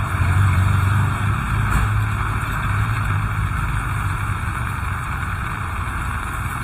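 Heavy rain falling steadily in a continuous hiss, under a low rumble that eases off after the first couple of seconds.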